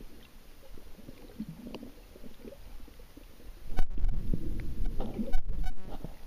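Muffled underwater sound of water moving around a submerged camera: a low, rumbling wash that grows louder about four seconds in, with a few sharp knocks near four and five and a half seconds.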